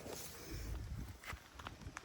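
Footsteps and rustling with low handling rumble, and a few short sharp clicks.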